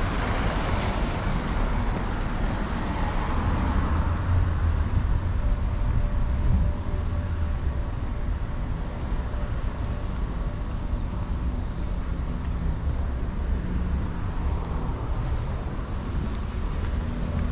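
An SUV drives past close by, its tyre and engine noise fading within the first couple of seconds, leaving a steady low rumble of street traffic.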